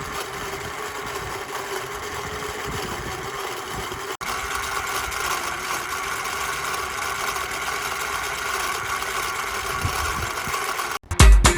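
Small electric motor of a homemade cardboard washing machine running steadily with a whirring hum. It breaks off briefly about four seconds in and then carries on a little louder.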